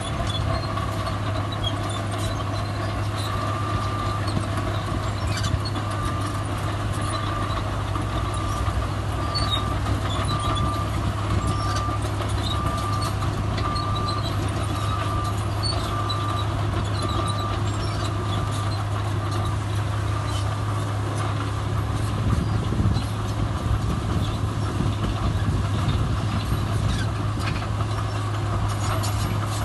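Heavy diesel earthmoving machinery running steadily, with a reversing alarm beeping about once a second from a few seconds in until about two-thirds of the way through.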